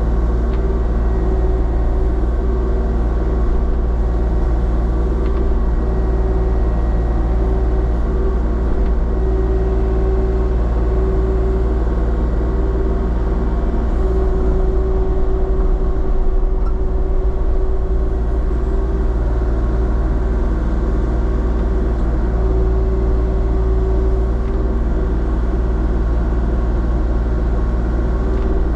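Heavy engine running at a steady, unchanging speed, with a constant low hum and drone.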